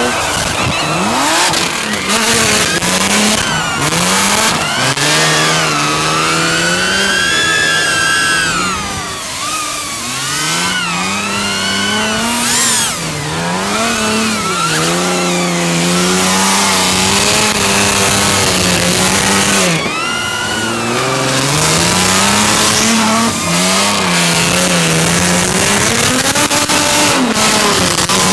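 Drift car engine revving up and down again and again as the car slides, its pitch climbing and dropping every second or two, with tyre squeal throughout.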